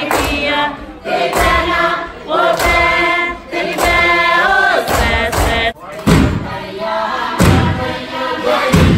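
A group singing a Kiribati dance chant together. About six seconds in it breaks off abruptly into another chant, accompanied by heavy beats about every second and a half.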